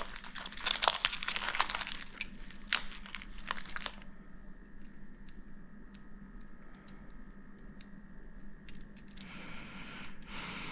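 Crinkly packaging rustling and crackling as it is handled. After about four seconds it thins out to scattered light clicks over a faint steady hum.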